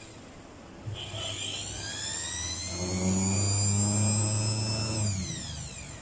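Mixer grinder motor switched on for a test run: it spins up with a rising whine, runs at a steady high whine over a low hum, then is switched off and winds down with a falling whine.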